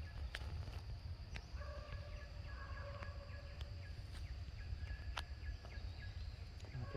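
Outdoor forest ambience: a steady high-pitched insect drone over a low rumble, with a few sharp clicks and, between about one and a half and three seconds in, a faint held tone with overtones.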